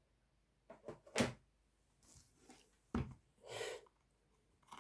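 Handling noise from a lighting stand being adjusted: a few short knocks and clicks, the sharpest about a second in and another near three seconds, with a brief soft scrape just after.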